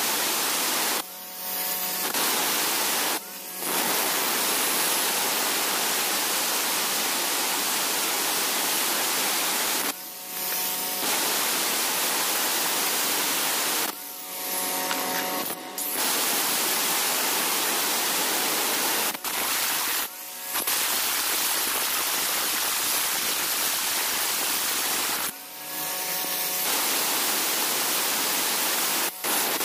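Electric angle grinder's disc grinding hard river stone into a mortar bowl: a steady, harsh grinding hiss. Several times the disc briefly lifts off the stone and only the grinder motor's whine is heard.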